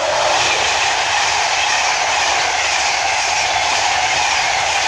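InterCity 225 electric express (Class 91 locomotive with Mark 4 coaches) running through the station at speed without stopping: a steady, loud rush of wheels on rail and air.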